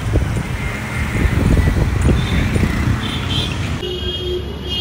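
Busy road traffic heard from a moving cycle rickshaw: a steady rumble of passing motorbikes and cars, with a vehicle horn tooting briefly about three seconds in and again near the end.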